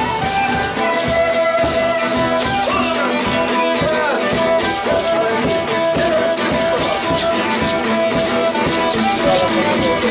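Instrumental music with a melody of held notes over a steady beat.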